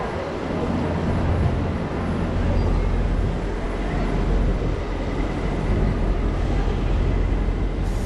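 Street traffic noise: a steady low engine rumble from vehicles close alongside, under a general hiss of city road noise.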